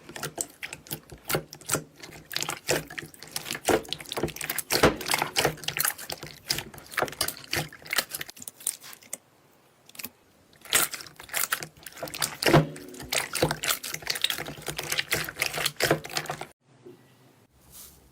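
Slime being squished, making a dense, irregular run of wet clicks and pops, with a brief pause about halfway and a sudden stop near the end.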